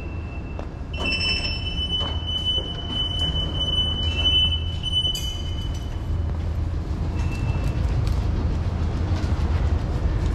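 A steady low rumble with a high-pitched squeal that starts about a second in, holds for about five seconds, then stops.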